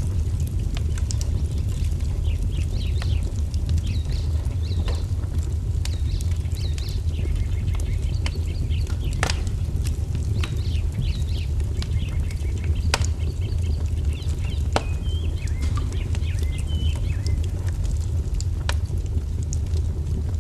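Wood fire crackling, with scattered sharp pops over a steady low rumble, while small birds chirp and twitter.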